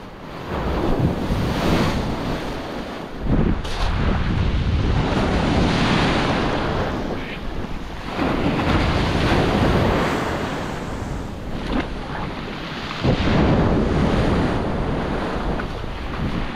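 Surf breaking and washing up over a pebble beach, swelling and ebbing every few seconds, with a stiff wind buffeting the microphone.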